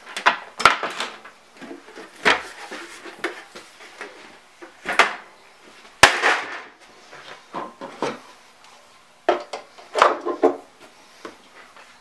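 Hands handling the parts of a Technics SL-1200 turntable: a series of separate knocks, sharp clicks and short rustling bursts as the plastic dust cover comes off and the platter and slipmat are set back on.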